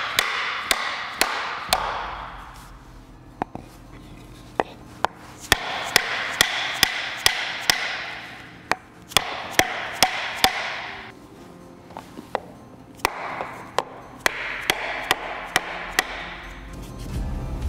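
Repeated hammer blows, roughly two a second, in several runs of sharp strikes.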